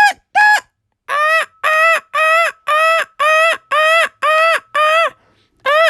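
Fire alarm horn sounding in a run of short, even blasts, about two a second. The first two blasts are higher-pitched and a little shorter than the steady string that follows.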